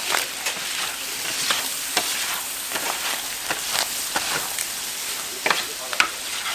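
Pork offal sizzling on a hot flat steel griddle as a metal scraper pushes and turns it, the blade clicking and scraping on the steel every so often, with two sharp clacks near the end.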